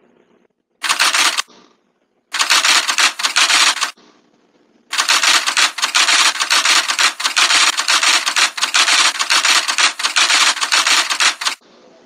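Typewriter sound effect: rapid keystroke clicking in three runs, a short one about a second in, a longer one around two to four seconds, and a long run from about five seconds until just before the end.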